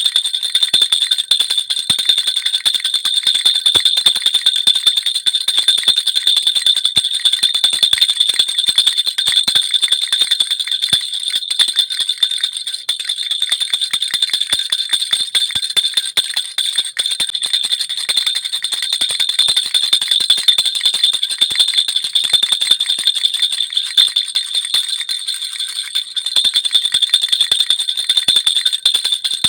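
Baby rattle (jhunjhuna) shaken continuously: a fast, dense jingling with a steady high ringing, easing a little at times without stopping.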